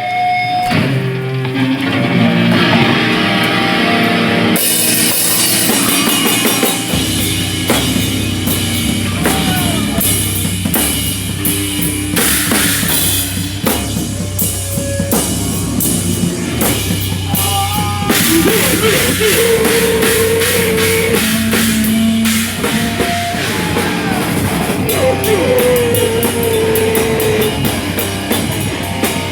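Live heavy rock band playing loud: drum kit and electric guitar, with bending guitar lines. The cymbals crash in about four seconds in, and a heavy low end joins a few seconds later.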